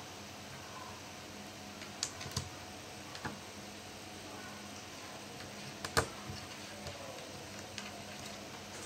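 Scattered light clicks and taps of small plastic and metal laptop parts and screws being handled, a few at a time, the loudest about six seconds in, over a faint steady hum.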